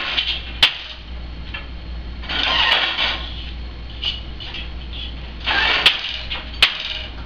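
A wooden countermarch loom being woven on: sharp wooden knocks from the beater and shuttle about half a second in and twice near the end, with two longer clattering, rattling stretches between as the shed changes and the boat shuttle is passed. A steady low hum runs underneath.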